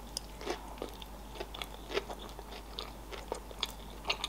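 Close-miked chewing of a mouthful of sushi roll, with irregular small mouth clicks and smacks several times a second.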